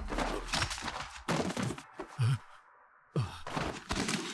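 A series of dull thuds and short scraping noises, with a brief gap about three seconds in.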